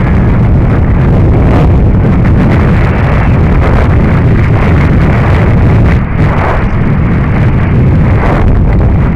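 Heavy wind buffeting on a helmet camera's microphone during a fast downhill mountain-bike descent on a dirt track, with frequent knocks and rattles from the bike over the rough ground.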